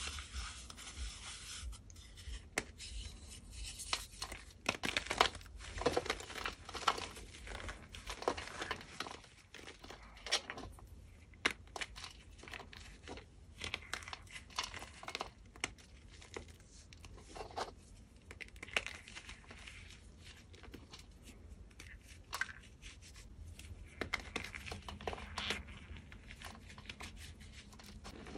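Hands crushing and crumbling a block of dyed gym chalk into powder: a run of irregular, dry crunches and crackles with soft powdery rubbing between them, busiest in the first half.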